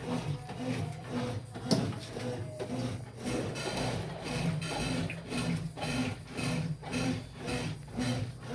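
Consul washing machine running in its rinse cycle with a rhythmic mechanical rubbing noise, about two pulses a second over a low hum. The owner finds the noise strange and does not know its cause.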